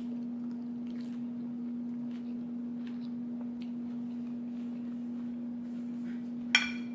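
A steady low hum with faint small clicks of eating, and about six and a half seconds in one sharp clink of cutlery against a dish that rings briefly.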